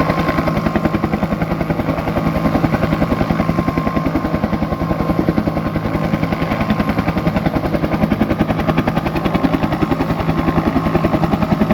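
Bell UH-1 "Huey" helicopter running with its rotor turning: a steady, rapid blade chop of about ten beats a second under a constant turbine whine.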